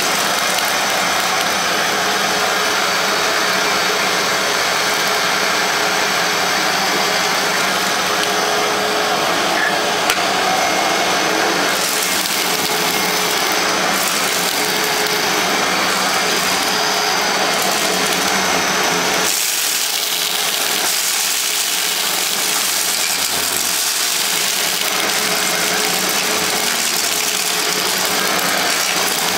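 Hoover WindTunnel self-propelled bagless upright vacuum cleaner (model U6630) running steadily as it is pushed over carpet. There is a single click about ten seconds in, and its tone shifts about two-thirds of the way through.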